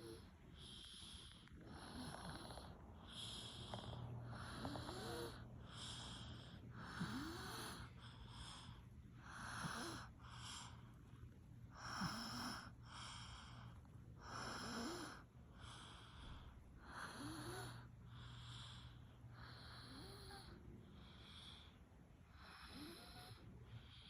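A sleeping small child snoring softly, one breath about every second or so in an even rhythm.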